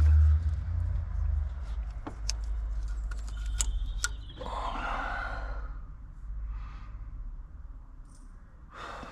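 A man sighing and breathing out heavily a few times, with several light clicks and taps of small parts being handled over a steady low rumble.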